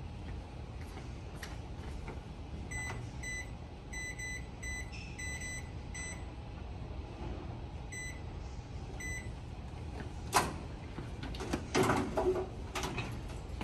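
About a dozen short, high electronic beeps, irregularly spaced, over a steady low hum, followed by a few sharp knocks near the end.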